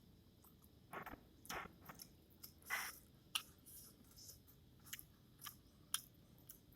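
A person eating Maggi masala instant noodles: faint chewing and mouth sounds, with irregular short wet smacks and sharp clicks, about a dozen over several seconds.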